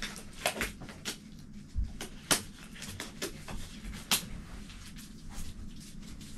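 Scattered sharp clicks and light knocks of things being handled on a workbench, with a dull thump about two seconds in.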